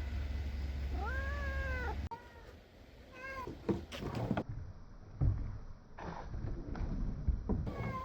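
Domestic cat meowing several times: one longer rising-and-falling meow about a second in, then shorter meows. A few soft knocks come in the middle.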